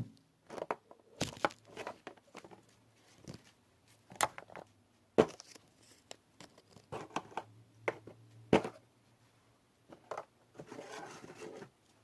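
Craft supplies being handled: packaging crinkling and tearing, with scattered clicks and knocks as items are picked up and set down.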